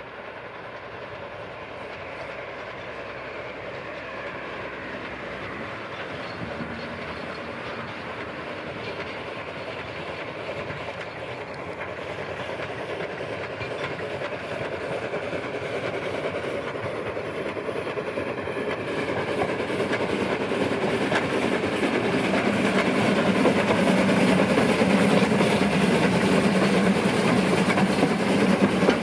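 Saxon IV K narrow-gauge steam locomotive working a passenger train, its exhaust chuffing and the carriages' wheels clattering on the rails. The sound grows steadily louder as the train approaches and passes close by.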